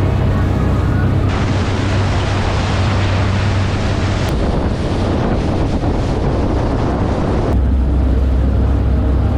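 A boat running offshore: the low, steady drone of its engines under a rush of wind on the microphone and water past the hull. About seven and a half seconds in, the rushing fades and the engine drone comes forward.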